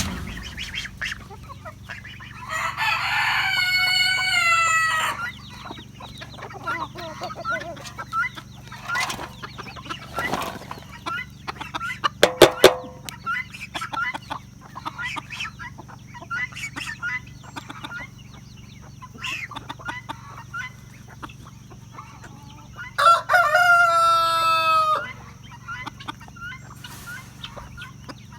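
Flock of chickens clucking throughout, with a rooster crowing twice: once a few seconds in and again near the end.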